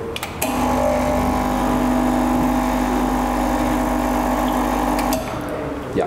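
Rocket Espresso Stone espresso machine's pump running steadily with a buzzing hum as water is pushed through the group head, starting about half a second in and cutting off near the end. This is a first test run of the freshly set-up machine.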